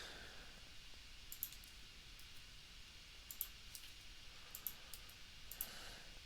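Faint, scattered clicks of a computer mouse, some in quick pairs like double-clicks, over a low steady hiss.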